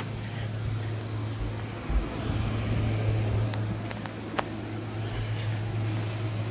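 Steady low mechanical hum of a small room, with a soft thump about two seconds in and a few light clicks a little later, from the phone being carried and handled.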